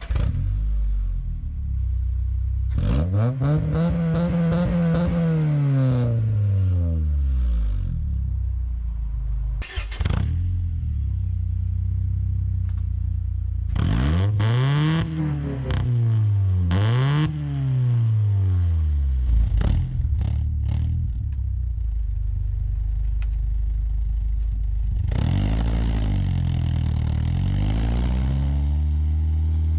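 Sixth-generation Honda Accord with an aftermarket cat-back exhaust idling and being revved: one long rev a few seconds in, two quick revs back to back about halfway through, and another rev near the end that falls back to a steady idle. A few sharp clicks come between the revs.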